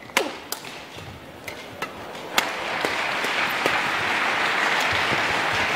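Badminton rackets hitting a shuttlecock several times in a rally, with a sneaker squeaking on the court floor, then about two and a half seconds in an arena crowd breaks into steady applause.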